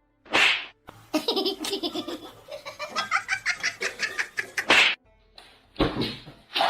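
A person laughing hard in quick, rapid pulses, broken by a few short, sharp breathy bursts.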